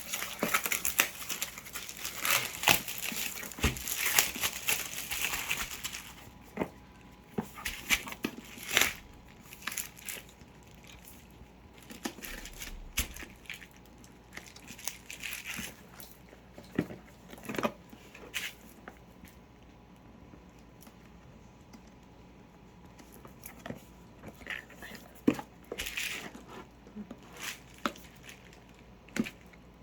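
Packaging being torn open and crumpled by hand, a dense crinkling for about the first six seconds, then scattered rustles and clicks as it is handled.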